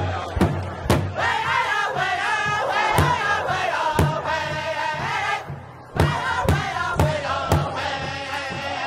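Soundtrack music: a song with chanted and sung vocals over heavy drum beats, about two a second. It drops out briefly about five and a half seconds in.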